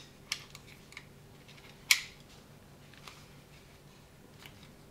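A Taran Tactical base plate being slid onto a Glock magazine against the magazine spring: a few sharp clicks of plastic and metal handling, the loudest about two seconds in.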